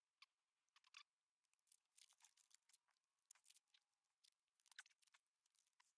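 Near silence with faint, scattered rustles and small clicks of hands handling the e-bike's battery and wiring, along with quilted jacket fabric brushing.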